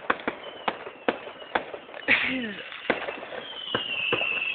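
Fireworks display going off: a string of sharp bangs and cracks, with a louder burst about two seconds in. A high, thin whistle starts about three and a half seconds in and holds on.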